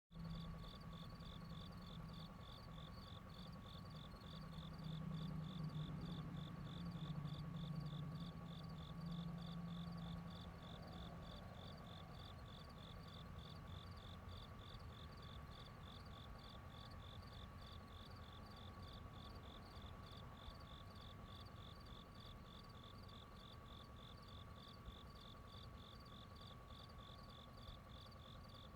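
Crickets chirping in an even, steady rhythm, with a thin steady high note beneath them. A low hum swells about a quarter of the way in and fades by the middle.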